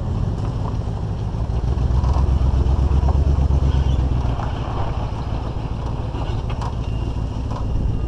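GMC Suburban towing a loaded flatbed trailer on the road: a steady low rumble of engine and road noise, with wind on the microphone, picked up at the rear window.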